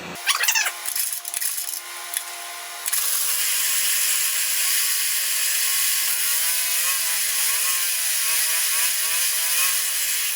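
Homelite 3000-watt generator engine running on a makeshift throttle butterfly in its carburetor. It gets louder about three seconds in, then its speed rises and falls unevenly: surging, because the homemade throttle has no stop.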